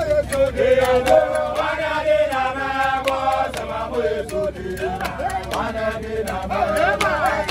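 A group of men singing a chant together, several voices at once, held notes rising and falling.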